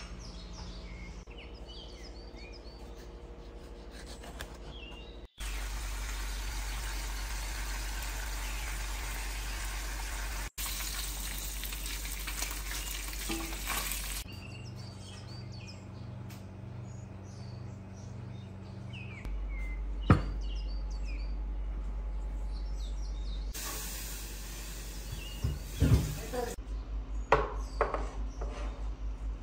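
Bacon sizzling in a frying pan, with a steady hiss as it is tossed with tongs. In the quieter stretches, birds chirp faintly, and a single sharp knock stands out about two-thirds of the way through. Near the end come a run of clinks and knocks as dishes are set down on a wooden table.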